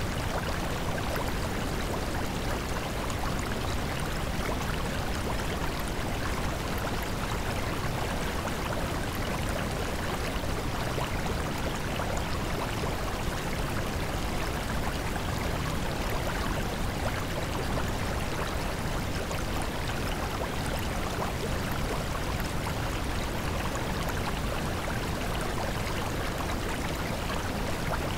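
Steady, even rushing noise like a flowing stream, with no rhythm, pitch or audible voice: the masking sound bed of a subliminal affirmation track.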